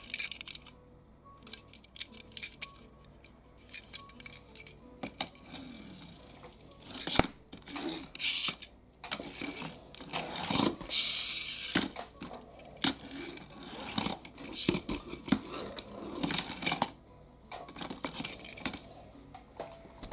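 Clicks and taps from a small die-cast RMZ City BMW X6 pullback car being handled. In the middle come whirring bursts from its pullback spring motor as the car is drawn back across the tabletop and let go.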